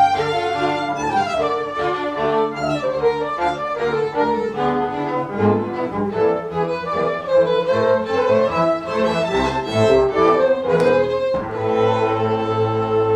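Music played by bowed strings: violin and cello over a low string part, a sustained chord held near the end.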